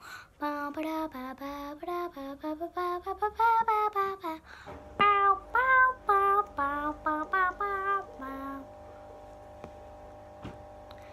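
A young girl singing a high, wordless tune in short notes one after another, stopping about eight seconds in. A faint steady drone of several tones runs underneath from about halfway.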